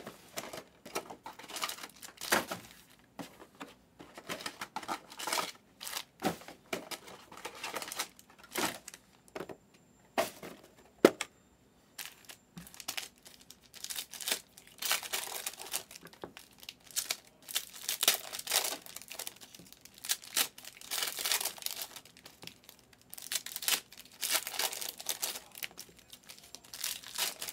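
Foil trading-card packs crinkling and tearing as they are handled and ripped open by hand, in irregular bursts with a short lull about a third of the way in.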